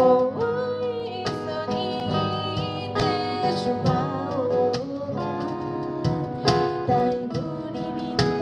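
Live acoustic music: acoustic guitar with a cajon keeping the beat, under a melody line that bends in pitch.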